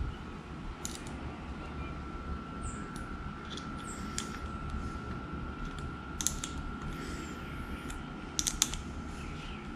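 Scattered small clicks and ticks of a hex key and metal parts being worked at an Urmosi aluminium thumb-throttle housing, with a quick cluster of three clicks near the end.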